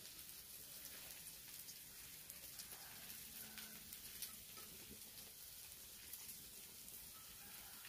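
Faint wood campfire crackling, a light scatter of irregular ticks over quiet outdoor background hiss.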